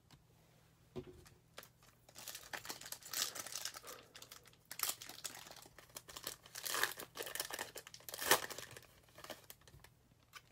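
Foil wrapper of a 2020 Bowman Mega Box trading-card pack crinkling and tearing as it is handled and ripped open by hand, in a run of crackling bursts lasting several seconds, after a light tap about a second in.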